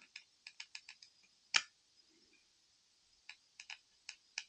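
Light, sharp clicks and taps of a precision Torx screwdriver tip against a tiny phone screw and its metal frame, in two short clusters with one louder click about a second and a half in. A T4 bit is being tried on what turns out to be a T3 screw, so the tip does not seat.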